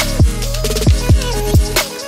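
Background electronic music with a steady beat: deep bass drum hits that fall in pitch, under held synth notes.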